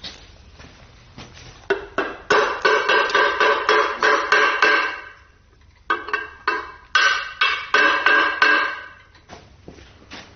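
Hammer striking metal in two quick runs of blows, about three to four a second, each blow ringing.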